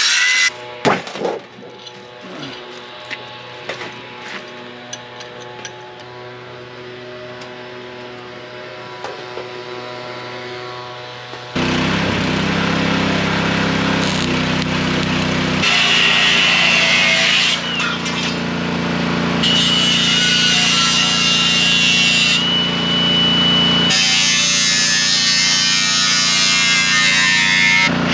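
Cordless angle grinder cutting and grinding thin sheet steel, loud from about a third of the way in, its high whine coming and going as the disc bites and lifts off. Before that, a quieter stretch of steady hum with scattered clicks.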